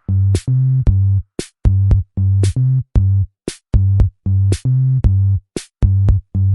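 Background electronic music: a drum-machine beat with short pulsing synth bass notes in a steady rhythm.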